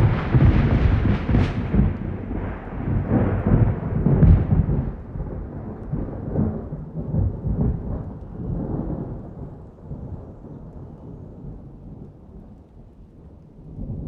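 A dry thunderclap cuts in suddenly out of silence and rolls on as a deep rumble. It swells several times in the first few seconds, then dies away slowly over about ten seconds. A new rumble starts right at the end.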